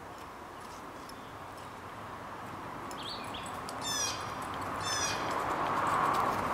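A songbird singing short phrases of quick, high, falling notes, twice in the second half, over a steady rushing noise that grows louder toward the end.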